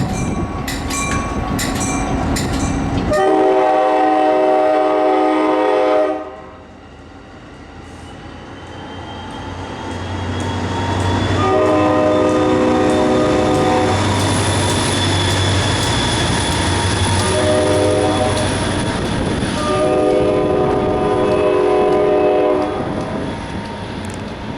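A train clicking over rail joints, then a locomotive's multi-chime air horn sounding a blast that cuts off abruptly. After a lull, an approaching train's rumble builds and its horn sounds a long blast, a short one and another long one.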